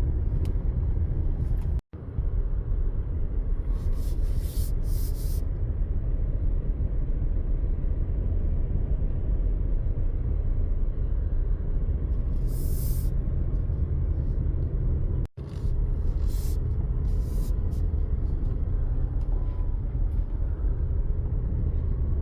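Steady low rumble of wind buffeting the microphone at the beach, with the surf beneath it and a few brief hissy gusts. It drops out for an instant twice, about two seconds in and about fifteen seconds in.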